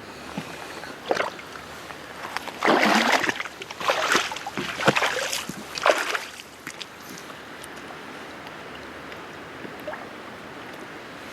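Water splashing and sloshing in a few short bursts over the first six seconds, then a steady faint rush of moving water.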